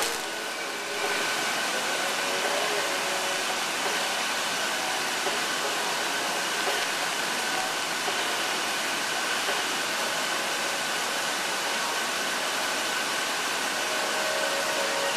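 Steady mechanical drone of workshop machinery, with a thin steady whine running through it and a brief dip in level about a second in.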